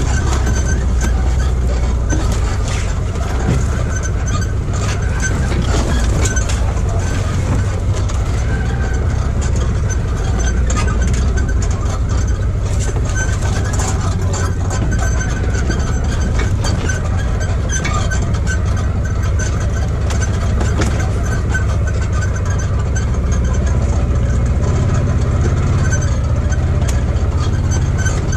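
Side-by-side UTV driving along a rough trail, its engine running steadily, with frequent short rattles and knocks from the vehicle over the uneven ground.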